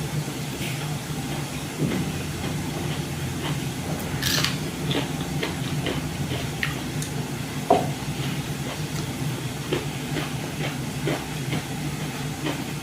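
Eating sounds: scattered soft chewing and mouth clicks over a steady low hum.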